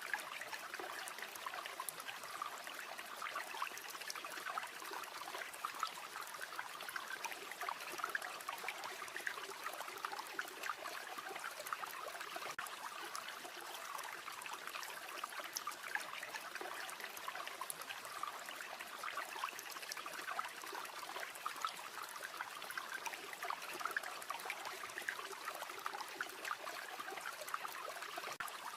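River flowing steadily, an even trickling rush of water.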